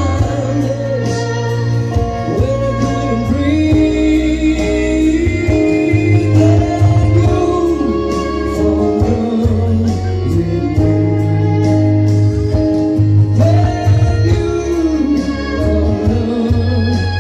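Live band music: a man singing into a microphone, accompanied by a Yamaha electronic keyboard carrying a steady bass line and a violin.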